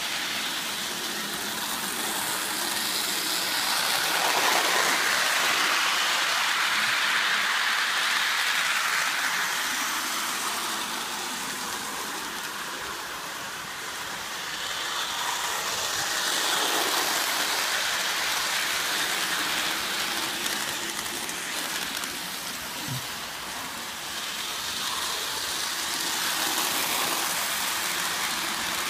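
O gauge model train running on its track loop: a steady rushing rumble of wheels and motor that swells and fades three times as it circles past.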